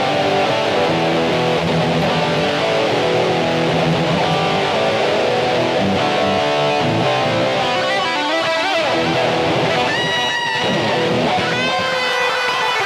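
Epiphone Les Paul Special I electric guitar played through a Boss eBand JS-10 tone patch: riffs and chords, then string bends and a held note with vibrato in the last third.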